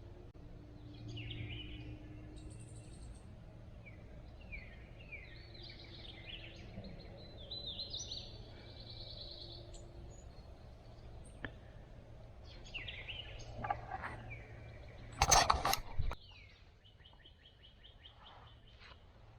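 Songbirds singing and calling in woodland, with many short chirps and a fast trill near the end. About fifteen seconds in, a brief loud burst of several close strokes stands above everything else.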